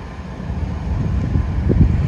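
BNSF diesel locomotives hauling a double-stack container train, a low rumble. Wind buffets the microphone in gusts that grow louder toward the end.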